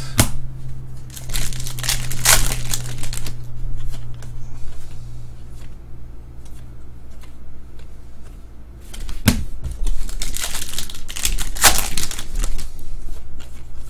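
Topps trading-card pack wrapper torn open and crinkled, followed by stiff trading cards rubbing and sliding against one another as they are flicked through by hand, in two spells of rustling with a couple of sharp clicks.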